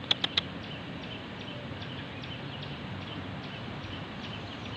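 House sparrows chirping: a quick run of sharp, loud chirps in the first half second, then fainter scattered chirps.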